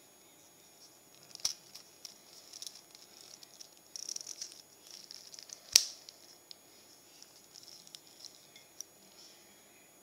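A Casio G-Shock's resin strap and steel buckle being handled close up: soft rubbing and rustling with scattered sharp clicks, the loudest about six seconds in.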